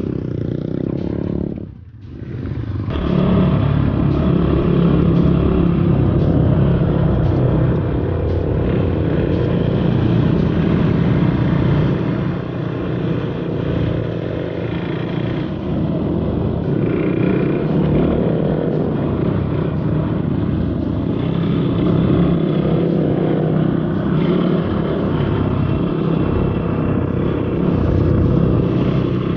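Motorcycle engine running during an off-road ride. It drops out briefly about two seconds in, then runs on steadily under way.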